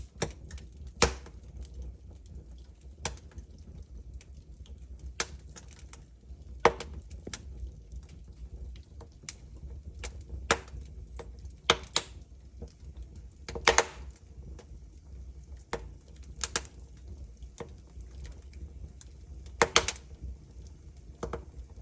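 Wood fire burning in a fireplace, crackling with irregular sharp pops every second or two over a low steady rumble.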